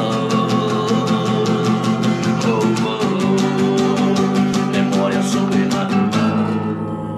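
Music: a song on nylon-string guitar with a man singing and a steady beat of about four strokes a second. The beat drops out about six seconds in.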